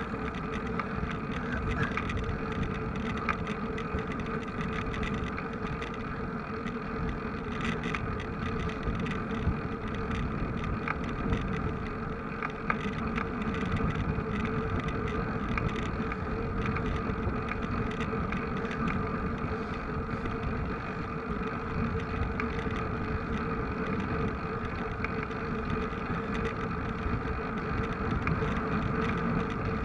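A vehicle running steadily, with an even low rumble and a constant drone that does not rise or fall.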